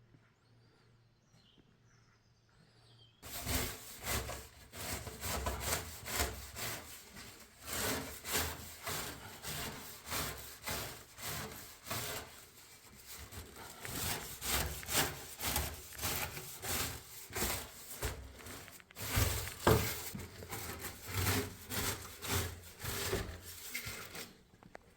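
Old woodworm-eaten wood being scrubbed in repeated, uneven back-and-forth strokes to clear out woodworm dust, starting about three seconds in.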